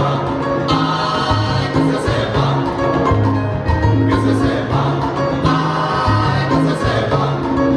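Live salsa band playing, with a chorus of several singers singing together over percussion, bass and a trumpet.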